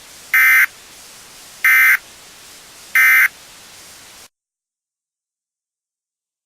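EAS end-of-message SAME data burst: three short, identical warbling digital tone bursts about a second and a quarter apart, the 'NNNN' code that closes an emergency alert. Each rides over a faint hiss, and the audio cuts off abruptly to silence a little over four seconds in.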